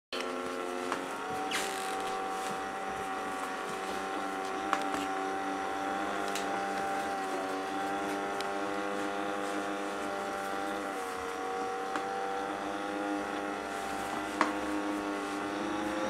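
Cheap Ooouse robot vacuum running in its slower, quieter mode: a steady motor whine made of several tones, with a few short sharp clicks.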